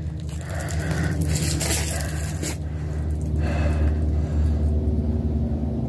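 A steady low mechanical hum, with scraping, rustling handling noise during the first few seconds.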